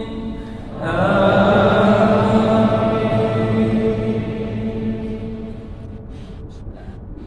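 An imam's melodic Quran recitation during congregational prayer. A held note ends at the start, then about a second in a new long drawn-out phrase begins and slowly fades toward the end.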